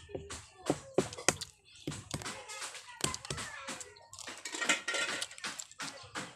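Balut eggshell being cracked and peeled by hand: a run of sharp shell clicks, with a crackly rustle of shell pieces breaking away about four to five seconds in, mixed with close eating sounds.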